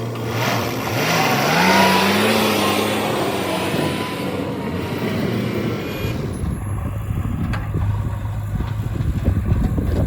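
Heavy diesel engine running, its pitch rising and falling as it works in the first few seconds. About six seconds in the sound changes abruptly to a lower, steadier engine note.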